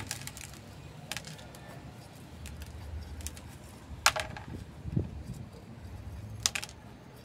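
Light scrapes and a few sharp clicks of a wooden stick prodding gravel-topped soil loose inside a small ceramic pot, the loudest clicks about four seconds in and near the end.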